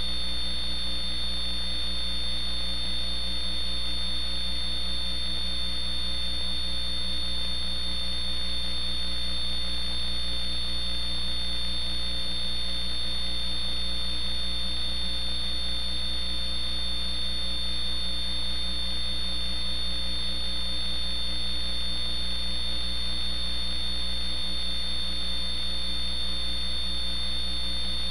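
Steady electrical hum on the audio feed: a low drone with a thin high whine above it, unchanging, with no other sound.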